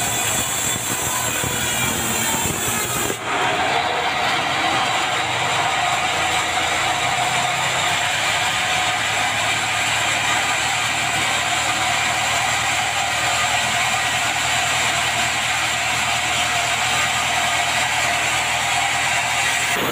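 Band sawmill running, its blade cutting lengthwise through a dry bengkirai (yellow balau) log as the carriage feeds it past. The sound changes abruptly about three seconds in, then holds steady.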